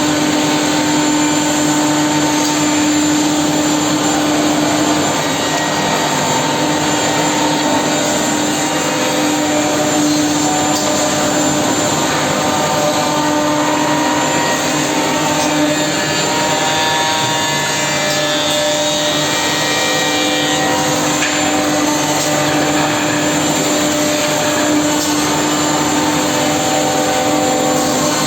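Woodmaster two-head CNC mortising machine running: steady loud machine noise with a constant hum and higher whining tones that come and go.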